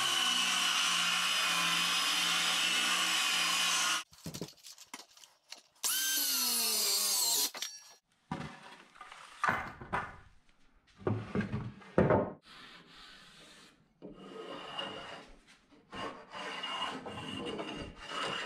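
Electric hand planer cutting down a pine board: a steady motor whir for about four seconds, then a shorter second run about six seconds in. After that come scattered knocks and clatter of wood and tools being handled.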